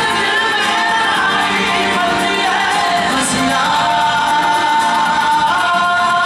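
Live qawwali party singing in chorus, accompanied by harmonium and tabla, with a long held sung note in the middle.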